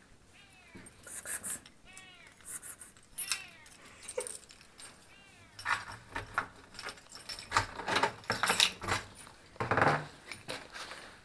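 Keys jangling and clicking in the lock of a front door while a male cat meows behind it, several short arched meows in the first few seconds. A louder clunk near the end as the door handle is worked.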